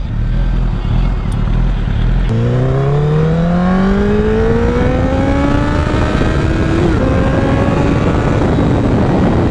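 Honda CBR1000RR's inline-four engine under acceleration, its pitch climbing steadily for about four seconds from a couple of seconds in, with a brief wobble near the end of the climb. Steady wind rush on the helmet-mounted microphone runs underneath.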